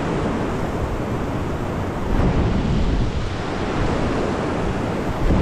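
Steady rush of a fast river pouring through whitewater over rocks.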